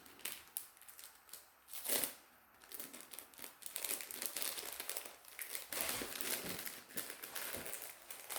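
Plastic packaging crinkling as it is handled, with one sharp rustle about two seconds in and near-continuous crinkling from about three and a half seconds on.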